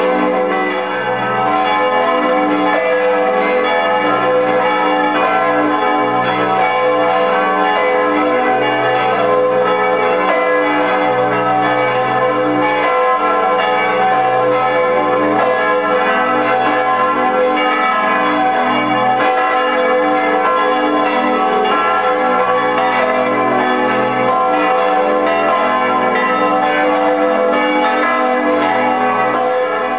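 Large bronze church bells of the cathedral's south tower swinging and ringing together in full peal, heard at close range from inside the belfry: a loud, steady wash of many overlapping ringing tones with no break.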